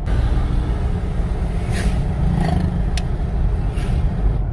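Steady engine and road rumble heard from inside the cabin of a car driving on a paved highway, with a single sharp click about three seconds in.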